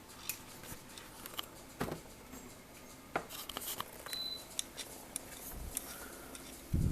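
Scattered light plastic clicks and taps as a replacement refrigerator water-dispenser part is handled and pushed into place in the dispenser housing.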